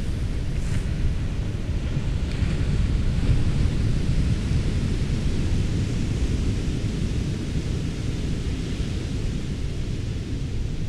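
Wind buffeting the microphone, a steady low rumble that swells a little about two seconds in.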